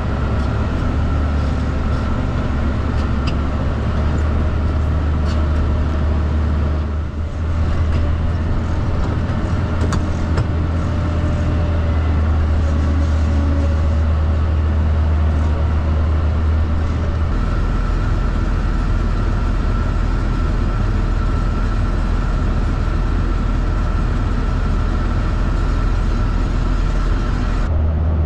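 International 1066 tractor's diesel engine running steadily under load with a deep drone. About two-thirds of the way through, the drone drops to a lower pitch.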